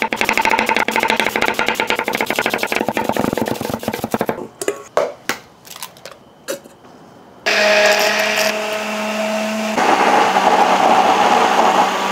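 Fast, continuous knife chopping on a wooden butcher block as cabbage is finely chopped, followed by a few knocks. About seven seconds in, an immersion stick blender starts running steadily as it emulsifies mayonnaise in a plastic deli container. Its tone changes about ten seconds in.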